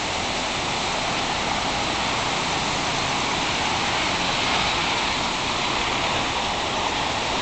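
Small waterfall: water pouring steadily over a low stone weir, a constant rushing splash.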